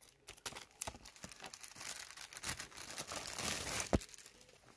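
Clear plastic wrapping on a toy box crinkling and tearing as it is pulled off, growing denser toward the end, with a single sharp tap about four seconds in.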